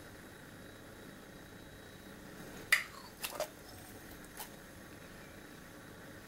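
A few short wet squelches as fingers pry a disc of set gelatin chicken-stock jelly loose from a small ceramic bowl, the loudest a little under halfway through, followed by two smaller ones and a faint click.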